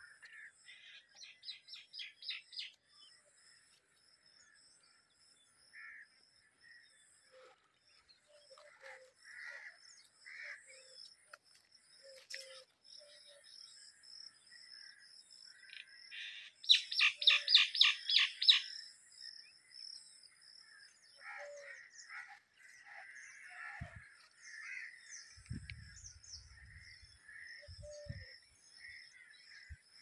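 Birds calling: a quick run of rapid repeated chirps about a second in and a louder run around the middle, with scattered shorter calls and a steady thin high-pitched tone in between.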